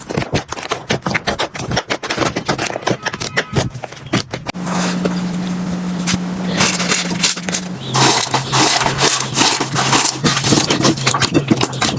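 Slime being worked by hand: dense rapid crackling and popping clicks, changing about four and a half seconds in to a smoother squishing over a low hum, with a run of loud sticky pops and clicks from about eight seconds in.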